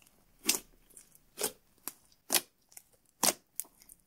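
Glitter-packed clear slime squished and poked by fingertips: a short squelch or pop about once a second, with fainter ones between.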